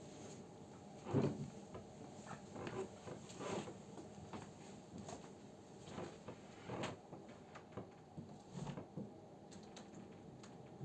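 Irregular light knocks and clicks, scattered a few per second at most, the loudest about a second in.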